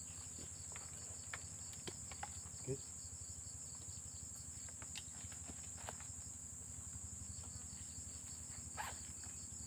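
Insects trilling steadily in a high, unbroken chorus, with a few faint clicks and knocks as wooden kitchen utensils are handled.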